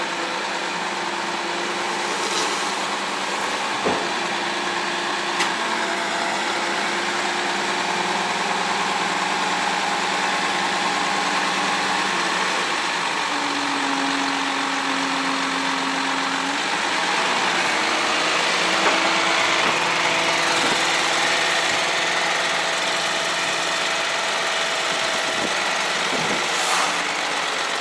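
Diesel engine of a Ponsse forestry forwarder running as the machine drives slowly up onto a lowbed trailer, its engine note shifting up and down in steps.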